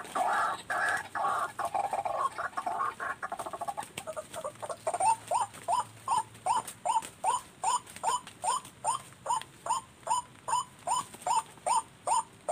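White-breasted waterhen calling. A few seconds of dense, harsh chattering give way about four seconds in to a steady run of short rising notes, about two and a half a second.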